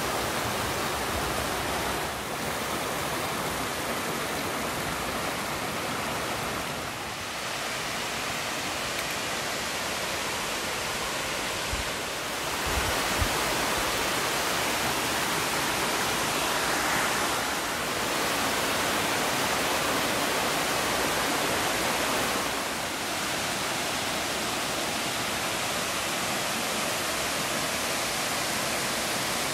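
Little Stony Creek's water rushing steadily, with a couple of brief knocks about halfway through.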